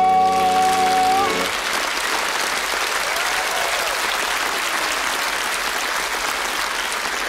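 A man holds the last sung note over a sustained garmon chord, which ends about a second and a half in; then the audience applauds.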